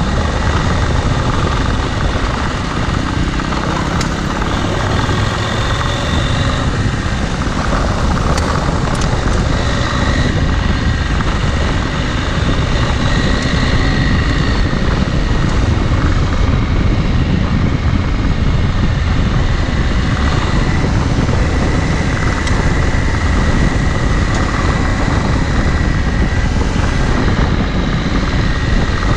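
Dual-sport adventure motorcycle underway, its engine running under a steady, loud rush of wind and road noise.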